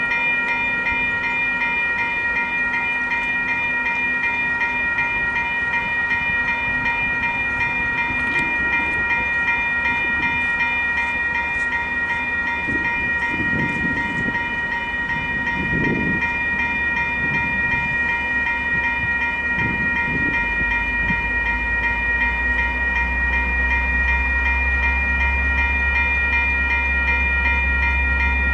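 Western Cullen Hayes electronic level-crossing bells (E-bells) ringing steadily as the crossing warns of an approaching train. About twenty seconds in, a low rumble rises underneath and keeps growing.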